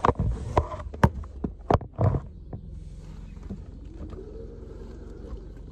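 Phone being handled inside a car: a run of sharp knocks and clicks in the first two seconds, then the low steady rumble of the car idling.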